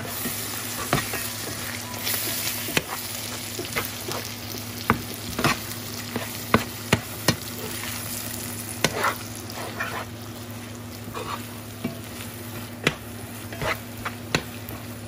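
Scrambled eggs with ham and corn tortillas sizzling in a frying pan while a metal slotted spatula stirs and scrapes them. The spatula knocks sharply against the pan many times.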